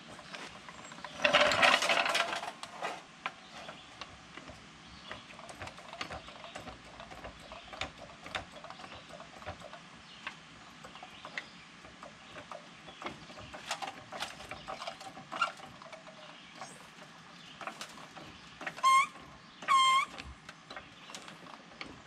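Hydraulic floor jack being dragged over dirt into place, a loud rattling scrape about a second in, then scattered clicks and knocks as it is set under the truck's front control arm. Near the end come two loud squeaks about a second apart as the jack handle is worked.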